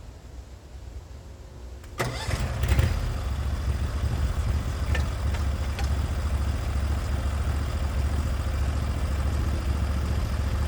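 Portable sawmill's engine starting about two seconds in, then running steadily.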